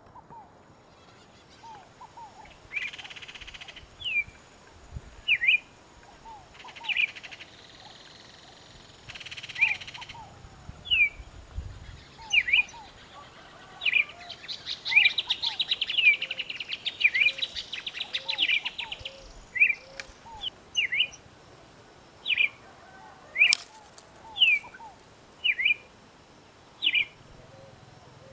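Kingfisher calling: a steady series of sharp, short, down-slurred notes about once a second, breaking into a fast rattle about halfway through.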